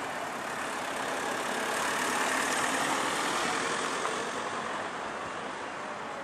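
A van driving past, its engine and tyre noise swelling to a peak about two seconds in and then fading.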